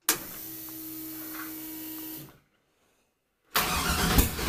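A steady electric hum for about two seconds. After a short break, the car's starter motor cranks the engine on jump-starter power, a loud rough churning that begins near the end.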